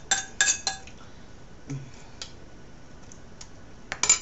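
A metal utensil clinking and scraping against a ceramic dinner plate. There is a quick run of ringing clinks in the first second, a few light ticks, then a loud clatter of clinks near the end.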